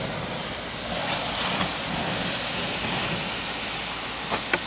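Water poured onto the glowing oak and beech embers of a wood fire, which hiss loudly with steam as the fire is put out. A couple of sharp cracks come near the end.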